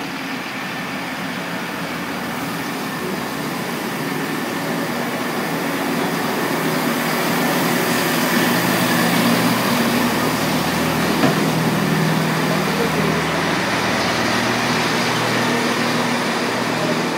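Northern Class 158 diesel multiple unit arriving at the platform, its underfloor diesel engines humming steadily as the carriages roll slowly past close by. It grows louder through the first half and then holds steady.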